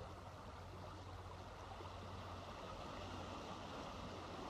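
Small waves washing steadily over a stony beach at the water's edge.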